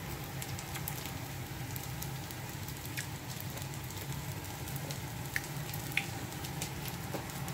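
Steady low hum under a faint crackling hiss, with a few light clicks.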